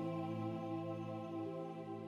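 Background music: a held ambient chord of steady tones, slowly fading.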